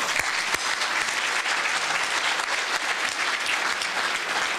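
Audience applauding, a dense, even patter of many hands clapping. Two sharper, closer claps stand out within the first second.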